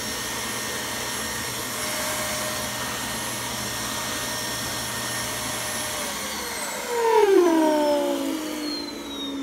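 Vacuum cleaner running steadily with a high motor whine as its hose crevice tool sucks on carpet, then winding down about six seconds in, its pitch falling. A second, louder burst about a second later also drops in pitch as it fades.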